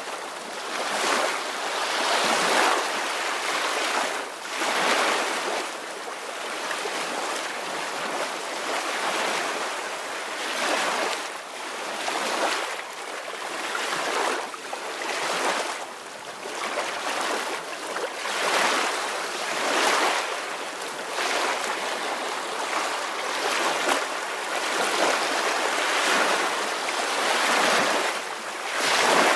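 Soft ocean waves breaking and washing in a steady rhythm, with a swell of hiss rising and falling every couple of seconds.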